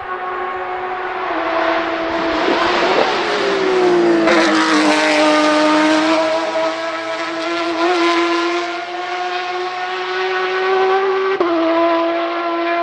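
Porsche 991.2 RSR race car's 4.0-litre flat-six on an open exhaust, passing close by with its note falling, then pulling away under acceleration. The pitch climbs steadily until an upshift drops it suddenly near the end.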